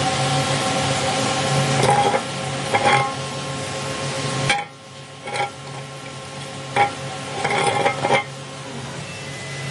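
Emco Turn 220 CNC lathe running, a steady machine hum with several fixed tones and a few sharp metallic clinks. The broader running noise cuts off suddenly about four and a half seconds in while the hum and tones go on.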